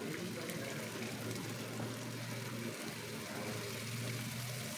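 Raw chicken pieces frying in a little hot oil in a nonstick pan: a steady, quiet sizzle.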